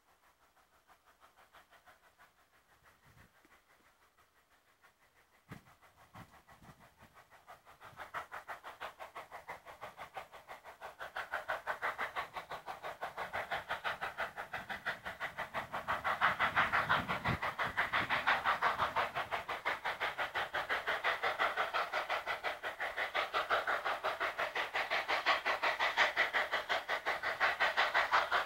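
Coal-fired narrow-gauge K-37 2-8-2 steam locomotive #497 working its train, its exhaust chuffing in a fast, even rhythm. It is faint at first and grows steadily louder from about eight seconds in as the engine approaches.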